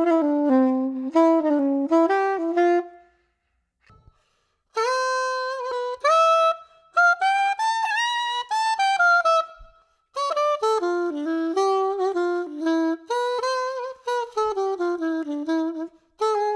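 A soprano saxophone ends a quick melodic phrase. After a pause of about a second and a half, a Yamaha Venova, a plastic casual wind instrument played with a reed mouthpiece, plays the same kind of melody in two phrases. The player judges that this instrument doesn't really play in tune.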